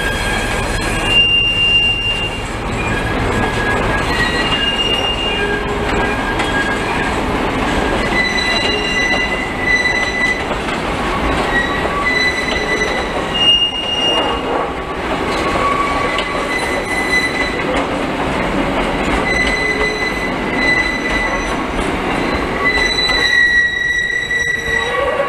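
Passenger carriages of a diesel-hauled train rolling slowly past with a steady rumble and rattle of running gear. Their steel wheels give off short, high-pitched squeals that come and go again and again.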